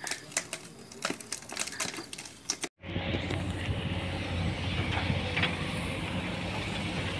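Irregular clicks and crackles, then, after an abrupt cut, the diesel engine of a Komatsu PC200-8 excavator running steadily with a low hum.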